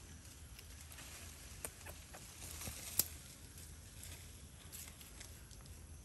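Light footsteps crunching and crackling over dry fallen leaves and gravel: a few scattered sharp clicks, the loudest about three seconds in.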